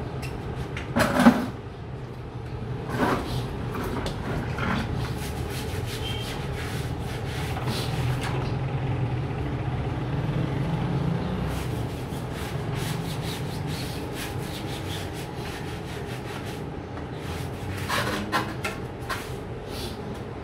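Repeated scrubbing strokes on a soapy, muddy mountain-bike tyre and wheel, with a few louder knocks, the loudest about a second in, over a steady low hum.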